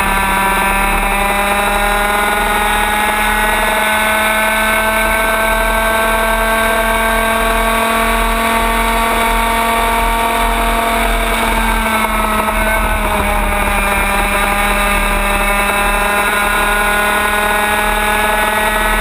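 Racing kart engine running hard, recorded on board while lapping. Its pitch drifts slowly down, dips briefly about twelve seconds in, then climbs again.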